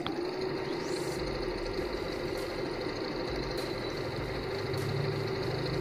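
Janome Memory Craft 6000 electronic sewing machine running steadily as it stitches a decorative pattern, a continuous motor hum with a fainter high whine.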